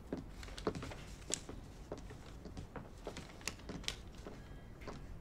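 Footsteps on a hard floor: faint, irregular light taps as two people walk into a room.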